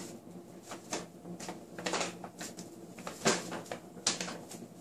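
Brown paper shopping bag crinkling and rustling in irregular sharp bursts as a cat moves about inside it, the loudest rustles a little after three seconds and near four seconds.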